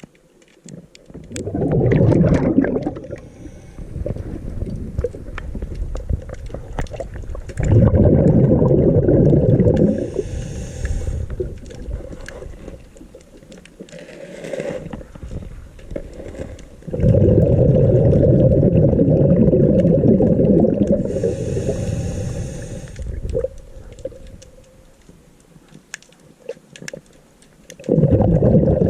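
A scuba diver breathing through a regulator underwater. Exhaled bubbles rumble in long bursts about every eight to ten seconds, and a fainter hiss comes between them.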